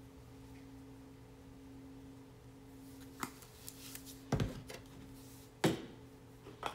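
Plastic spice shakers being handled: four sharp knocks and clicks from about three seconds in, the loudest two about a second and a half apart. A steady low hum lies underneath.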